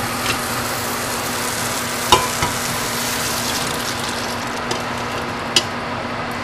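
Boiled chickpeas and their hot cooking liquid poured from an aluminium pressure cooker into a pan of frying onion-tomato masala, which sizzles steadily over a low hum. A sharp clink about two seconds in, and a smaller click near the end.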